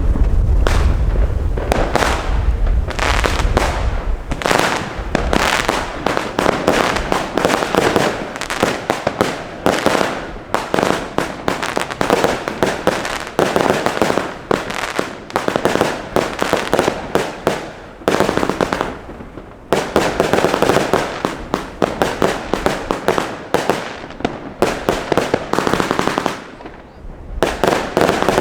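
A 100-shot consumer fireworks cake firing in quick succession: a rapid, loud run of shots and bursts, easing briefly about two-thirds of the way through and again near the end.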